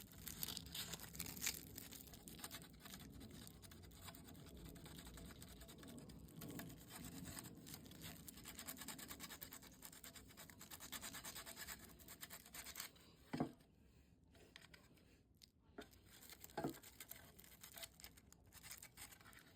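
Sandpaper scratching back and forth over a small plastic RC crawler body in quick, faint strokes, stopping about two-thirds of the way through, followed by two light knocks.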